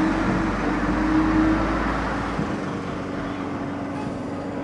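Schweizer S-269 light helicopter flying low overhead: a steady drone of its piston engine and rotor with a held engine note. It is loudest about a second in, and its deepest rumble drops away about two and a half seconds in.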